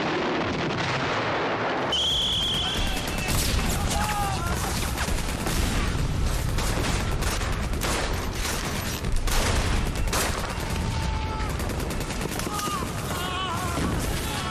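Battle sound from a war film: a rumbling din of distant fire, then, after a cut about two seconds in, rapid rifle and machine-gun fire with men shouting and crying out.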